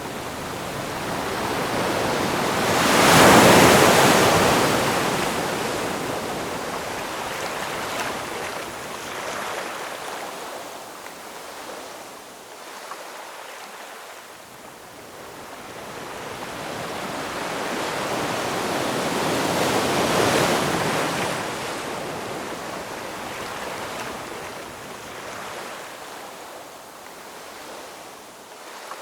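Ocean waves in slow rolling surges. One wave breaks about three seconds in and is the loudest, then washes out. A second, softer wave swells and breaks around twenty seconds in and fades again.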